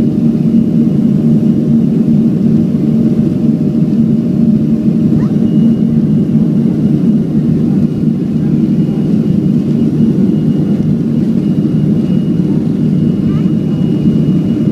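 Steady cabin noise of a Boeing 737-500 rolling on the ground: the CFM56 engines give an even low rumble with a faint high whine over it.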